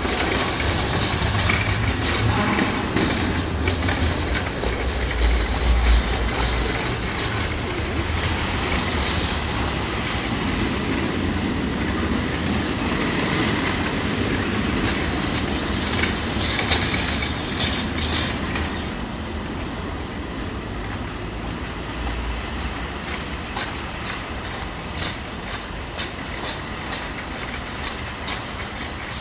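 Supermarket shopping cart being pushed along, its wheels rumbling steadily with scattered rattles and clicks; it gets a little quieter after about eighteen seconds.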